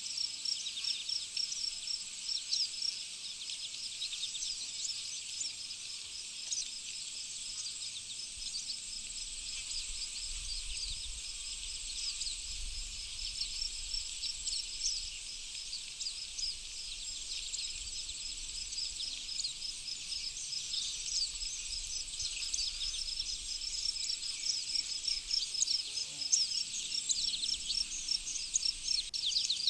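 Several songbirds chirping and singing in quick, overlapping high notes, over a steady high-pitched insect trill.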